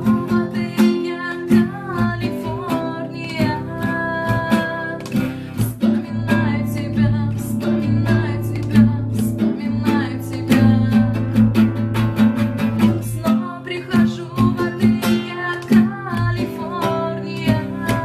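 Live music on a plucked string instrument: a quick run of plucked notes over a steady low drone.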